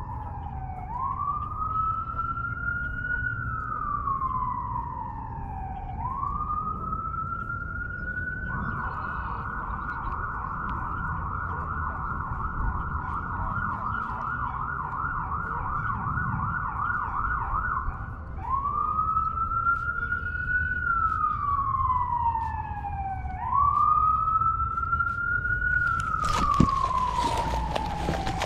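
Emergency vehicle siren cycling through slow wail sweeps, each rising quickly and falling slowly. About eight seconds in it switches to a fast yelp for some ten seconds, then goes back to the wail. Near the end there is splashing in the water.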